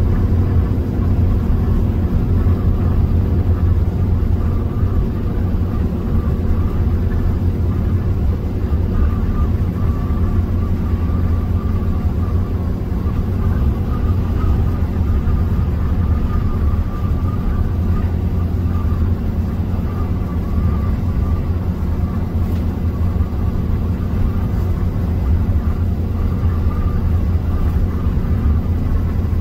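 Steady low engine and road drone inside a vehicle cruising at highway speed, with a faint wavering whine over it.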